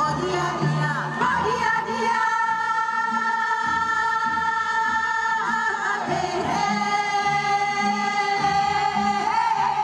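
A group of women singing a Gyeonggi minyo (Korean folk song) in unison through microphones over amplified backing music with a steady low pulse. They hold two long notes, the second a little lower than the first.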